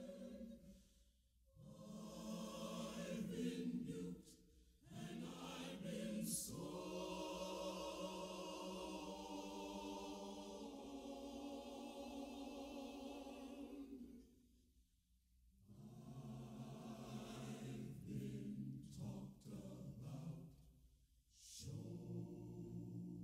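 Choir singing slowly in long held phrases, broken by short pauses, the longest about fifteen seconds in.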